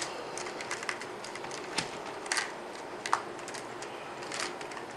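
Scattered light clicks and taps from small electronic parts being handled on a workbench, with a few sharper clicks among them over a faint steady hiss.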